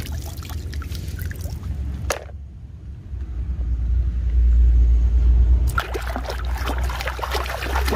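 Water splashing and sloshing as muddy plastic toys are rinsed and scrubbed by hand in shallow water. In the middle a deep low rumble takes over and is the loudest part, and the splashing comes back about six seconds in.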